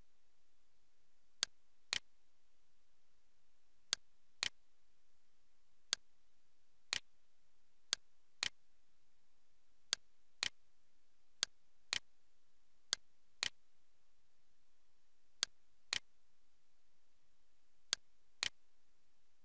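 Computer mouse clicks: sharp clicks in pairs about half a second apart, repeating every two seconds or so at uneven spacing, over a faint steady hiss.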